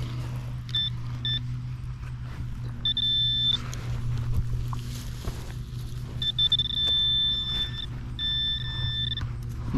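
Handheld metal detector sounding its target tone: a high steady beep that switches on and off, two short beeps and then longer ones of up to about a second and a half, over a steady low hum.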